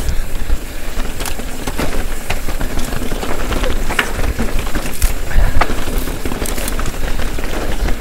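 Mountain bike riding fast down a rutted dirt singletrack: the tyres crunch over dirt and stones, and the bike clatters with many sharp knocks and rattles over the bumps. Wind rumbles steadily on the microphone.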